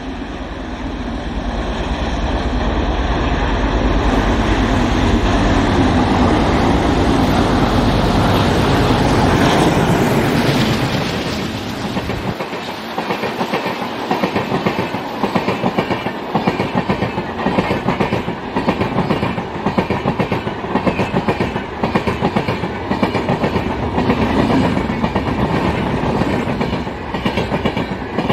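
A pair of ALCo diesel locomotives hauling a passenger train approach and pass, their engines growing loud over the first dozen seconds before dropping away. The coaches then roll by with a steady rhythmic clickety-clack of wheels over the rail joints.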